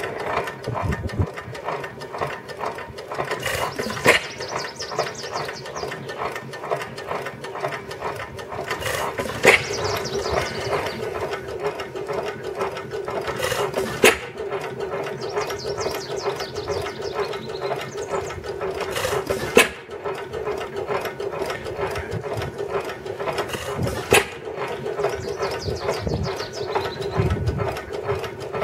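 5-1/2 hp Manitoba hit-and-miss stationary engine running: a steady fast clatter from its mechanism as the flywheels coast, with a sharp firing bang about every five seconds.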